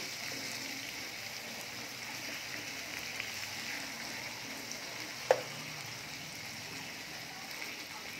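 Fish pieces in onion masala sizzling steadily in oil in a nonstick pan as a steel spoon gently stirs them, with one sharp knock about five seconds in.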